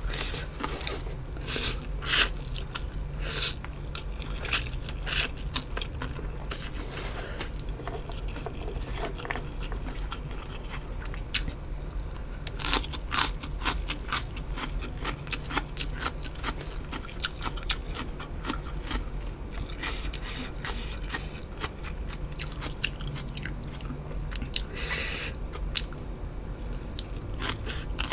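Close-miked eating: irregular crisp crunching bites and chewing, with the loudest crunches about two and four and a half seconds in.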